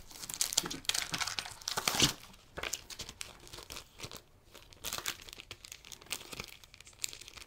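Clear plastic bag and paper manual crinkling and rustling as they are pulled out and handled, in irregular crackles.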